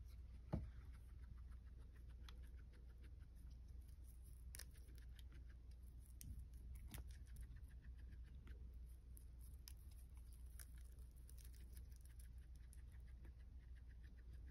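Guinea pig nibbling and chewing a bitter melon leaf: faint, quick, crisp clicks of bites, very quiet. A single sharper knock about half a second in.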